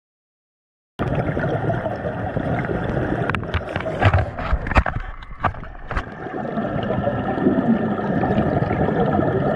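Scuba diving heard underwater: a diver's regulator breathing and exhaust bubbles gurgling over a steady muffled rumble. It starts about a second in, with a few sharp clicks in the middle.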